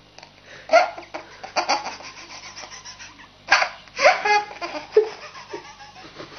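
A baby laughing in short giggles with breathy gaps between, the loudest bursts about a second in and around four seconds in.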